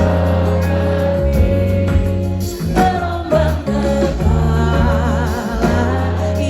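Live band playing a slow pop ballad, with a singer's voice holding long notes over steady bass and chords.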